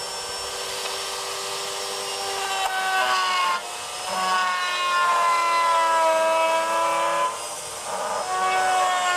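A woodworking power machine's motor running with a steady whine. Its pitch sags and recovers a few times, as it does under cutting load.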